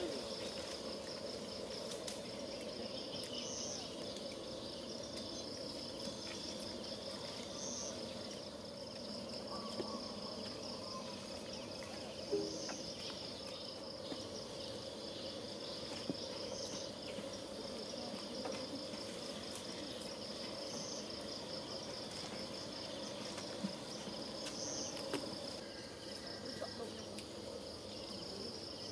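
Insects chirring in a steady, fast-pulsing trill, with a slightly higher note that recurs about every four seconds. A lower steady hum runs underneath.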